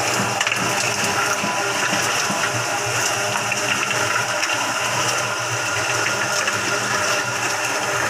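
Mini concrete mixer running steadily: its motor hums while stone aggregate and wet concrete churn and tumble in the turning drum, with many small clicks of stones against the steel.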